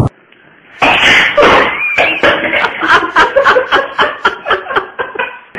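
People laughing hard in quick repeated bursts, starting about a second in after a short quiet moment.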